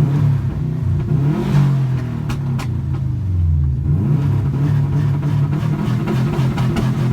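Subaru Impreza WRX STi's turbocharged flat-four boxer engine accelerating through the gears, heard through an open window. The revs climb, drop and climb again, and two sharp cracks come about two seconds in as the revs fall.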